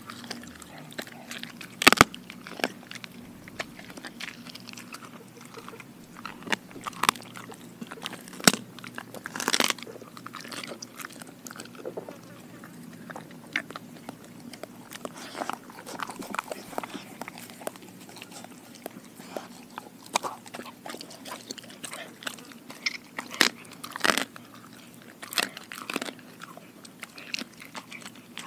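German Shepherd mix dog chewing homemade raw food: irregular sharp bites and crunches of her jaws. The loudest come about two seconds in, around eight to ten seconds in, and near the end.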